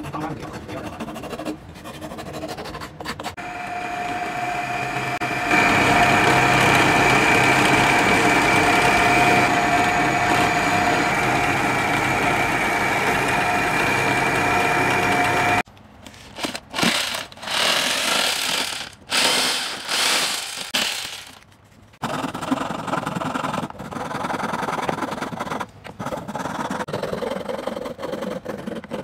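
Workshop power tools: a bench belt sander, then a drill press motor running with a steady whine while it bores holes in a block of wood. About halfway through the machine sound breaks off into short stop-start stretches before steadying again.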